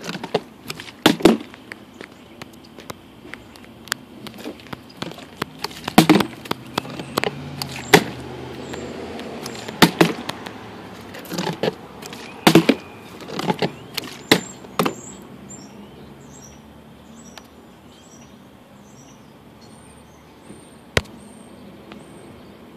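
A plastic sports-drink bottle, part filled with liquid, is flipped and lands again and again on a concrete step: a dozen or so sharp knocks over the first fifteen seconds, then one more near the end.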